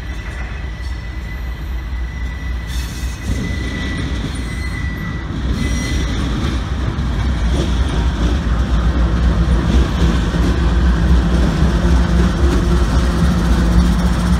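Two CSX diesel-electric locomotives hauling a freight train approach and pass close by: a deep engine rumble that grows steadily louder, with steady engine tones coming up in the second half. A thin high whine is heard in the first half.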